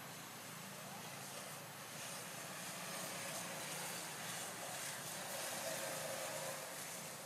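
Steady outdoor background noise, an even hiss that swells slightly in the middle, with a few faint high squeaks.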